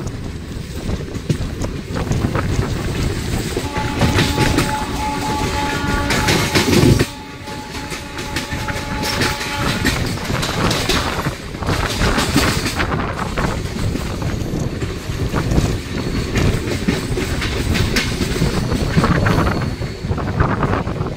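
Running noise of a moving train heard from its open door: wheels clattering over the rail joints and rumbling, with a freight train of hopper wagons going by on the next track. About four seconds in, a train horn sounds as a steady held tone for several seconds.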